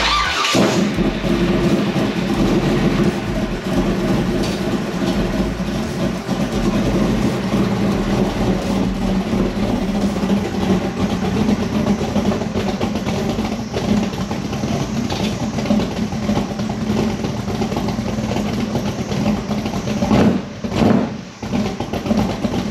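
An engine running steadily with a constant low drone, starting abruptly about half a second in, with a few brief surges near the end.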